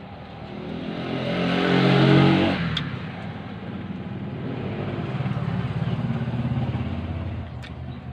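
A motor vehicle engine passing close by, growing louder to a peak about two seconds in and then falling away quickly, followed by another engine running steadily.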